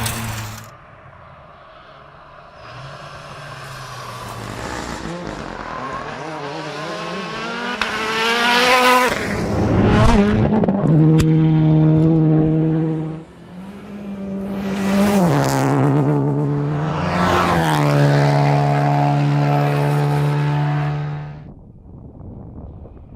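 Rally car engine at high revs: the note climbs to a peak, holds, and drops briefly. It then pulls hard again with two quick upshifts, where the note steps down, before the sound falls away sharply near the end.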